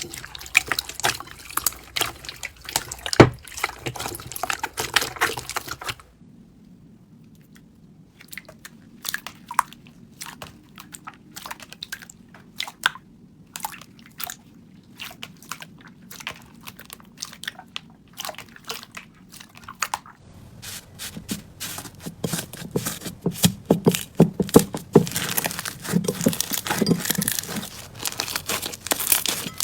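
Slime being squished and pressed by hand, with a run of crackly pops and clicks. The pops turn sparse and quiet about six seconds in and grow dense again after about twenty seconds.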